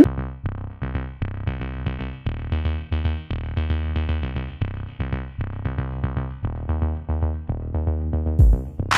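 Background music with a steady electronic beat. A deep boom sounds near the end.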